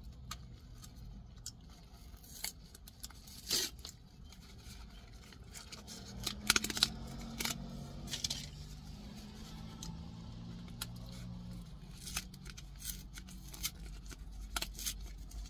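Paperboard pie-slice box handled and turned over in the hands: scattered scrapes, rubs and sharp clicks of the cardboard, with a faint low hum in the middle stretch.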